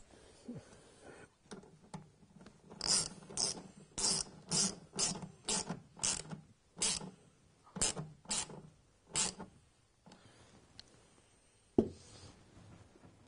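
A hand ratchet worked in short strokes, about two a second, tightening the mounting fixings of a car's control box. Then a single sharp click near the end.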